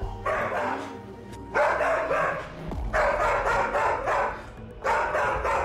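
A large dog barking on guard, tensed against a stranger, in several rapid runs of barks with short breaks, over background music.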